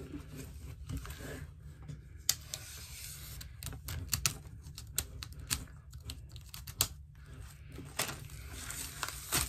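Packaging and stiff white panels being opened and handled: irregular sharp clicks and taps with light rustling, as the pieces knock and slide against each other.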